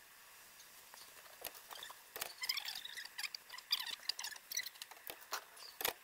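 Plastic row cover sheeting rustling and crinkling as it is handled, a dense run of irregular crackles and clicks that starts about a second and a half in.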